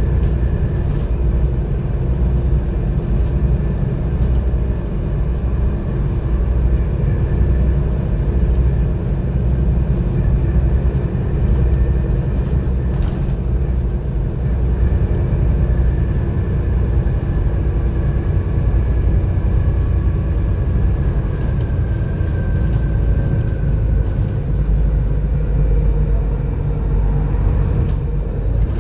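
Volvo B7TL double-decker bus's six-cylinder diesel and drivetrain heard from the upper deck while the bus is under way: a steady, deep rumble with road noise. A faint whine slowly falls in pitch through the middle.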